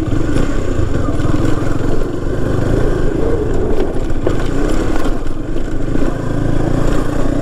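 KTM 250 Duke's single-cylinder engine running steadily as the motorcycle rides over a loose, rocky dirt track, with a brief knock about four seconds in.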